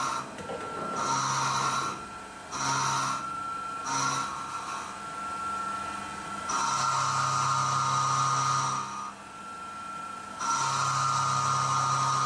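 SYIL X7 CNC milling machine's spindle running with a steady whine while its end mill cuts cast iron dry, the cutting noise rising in bursts of one to two seconds as the adaptive toolpath engages and leaves the stock.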